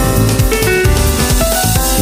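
A Samsung Galaxy phone ringtone playing: an electronic tune over a drum beat, with a run of notes stepping upward near the end.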